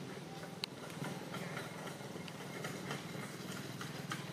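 Steady low hum of an idling engine, with scattered light clicks and rustles over it and one sharp click about half a second in.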